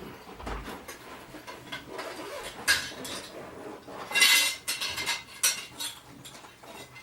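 Metal tools and parts clinking and clattering as they are handled on a workbench, in irregular bursts, the loudest clatter about four seconds in.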